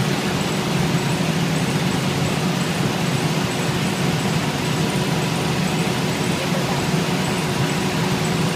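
Steady low engine drone with a faint constant hum, unchanging throughout.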